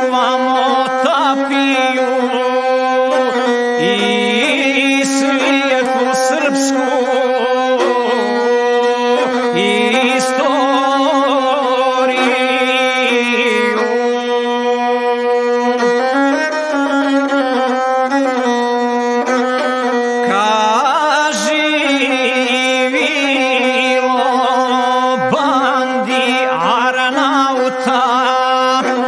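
Gusle, the Serbian single-string bowed instrument, playing a continuous melody that steps between a few notes, with wavering ornaments and trills.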